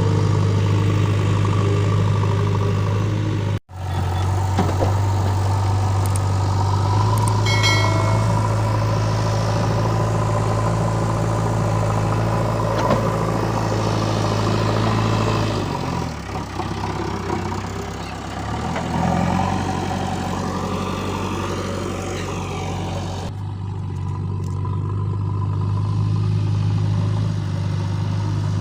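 JCB 3DX backhoe loader's diesel engine running steadily, with the engine note dipping for a few seconds about two-thirds of the way through.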